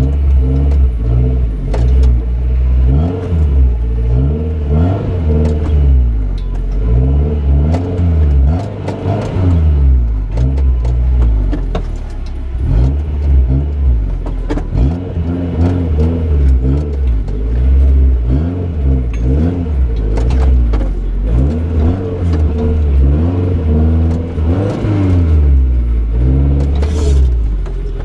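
An off-road 4x4's engine revving up and down over and over, its pitch climbing and dropping every second or two, with scattered sharp knocks.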